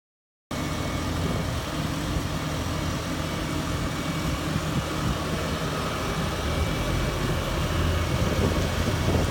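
Diesel engine of a JCB telehandler running steadily, starting about half a second in.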